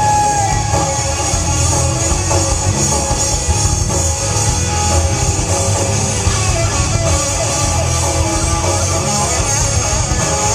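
Rock band playing live: electric guitars, bass and drum kit in an instrumental stretch of the song, with no singing.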